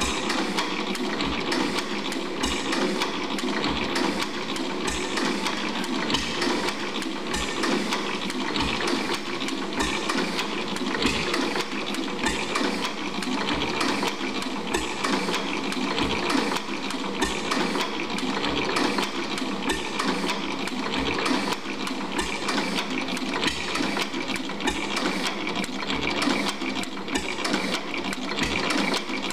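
A 4 HP Watkins single-cylinder stationary gas engine running: a steady mechanical clatter, with low thumps at uneven gaps of about a second.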